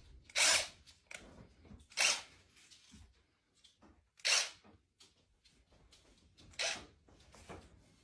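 A serval hissing at a cordless drill in four loud, sharp hisses about two seconds apart, with fainter ones between: a defensive warning.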